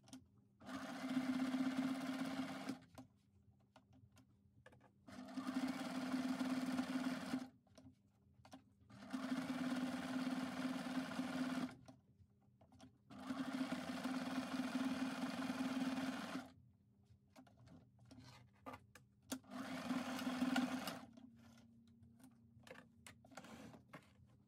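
Electric domestic sewing machine stitching felt, running in five short bursts of two to three seconds each and stopping between them, each burst at a steady speed. Small clicks of fabric handling fill the pauses.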